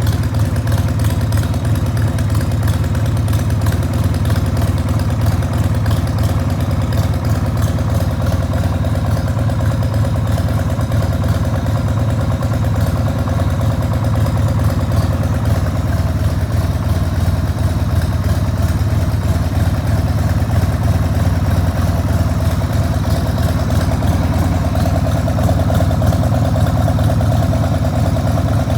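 1994 Harley-Davidson XLH1200 Sportster's 1200 cc Evolution V-twin idling steadily through Screamin' Eagle turnout silencers, a low even rumble with no revving.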